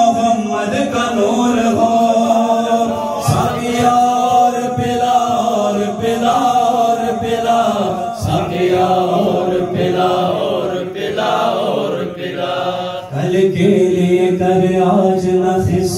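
A man singing a manqabat, an Urdu devotional song in praise of Ali, into a microphone, in a chanting style with long held notes.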